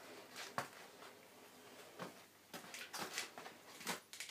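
Faint scattered clicks and light metallic knocks of a milling head and its parts being handled on a steel mill table, about a dozen in all, the sharpest near the end.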